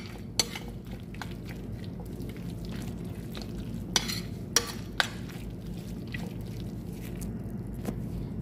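A spoon stirring macaroni and béchamel sauce in a bowl, the soft sticky mixing broken by a few sharp clinks of the spoon against the bowl, the loudest about four and five seconds in. A steady low hum runs underneath.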